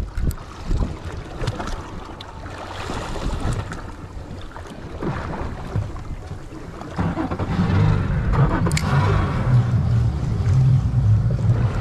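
Wind and water noise around a small fishing boat at sea, with scattered knocks. About seven seconds in, a steady low engine hum sets in and gets louder.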